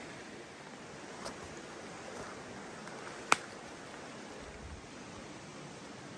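Steady rush of running water. A sharp click about three seconds in is the loudest moment, with two fainter clicks a second or two before it.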